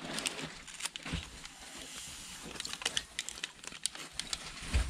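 Crinkling and rustling of a small vitamin packet being handled, with scattered small clicks, and a low thump near the end.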